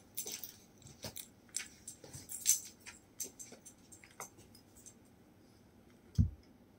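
Scattered soft clicks and crackles in a quiet room once the record's music has stopped. Just after six seconds, a single low thump through the speakers as the turntable's stylus is lifted off the LP.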